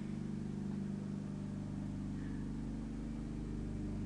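Steady low mechanical hum made of several steady tones.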